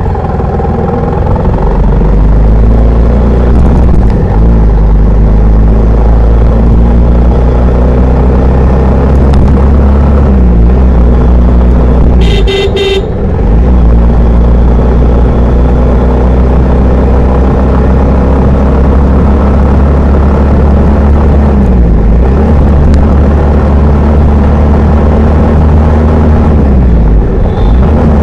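Bajaj Pulsar 150's single-cylinder engine heard from the saddle while riding. Its revs climb and drop several times with throttle and gear changes, under a heavy low wind rumble on the microphone. A vehicle horn honks briefly about halfway through.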